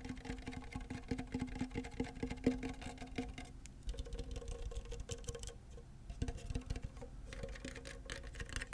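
Rapid fingertip tapping on a hard, resonant object, which rings with a steady low tone under the taps. The tapping thins out briefly around the middle, then carries on.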